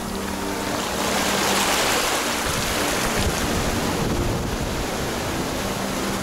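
Sea surf washing onto a sandy beach: a steady rush of waves that swells to its loudest about one to three seconds in.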